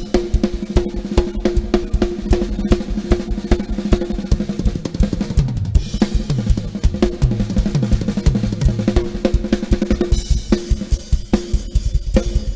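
Drum kit played fast and loud over a concert PA system of line-array speakers and subwoofers: dense kick drum and snare hits, cymbals and rolls. Midway, a run of low hits falls in pitch.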